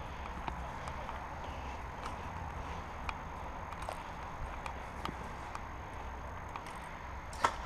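Scattered sharp clicks and pops from airsoft guns firing during the game, over a steady low rumble, with a louder pair of cracks near the end.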